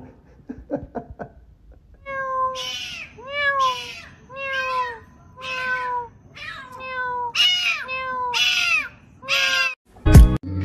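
A cat meowing over and over, about eight drawn-out meows roughly a second apart, each bending up and then down in pitch. A sudden loud bang near the end.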